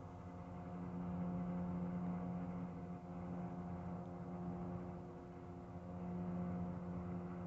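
Distant towboat diesel engines droning: a steady low hum that swells about a second in and again near the end.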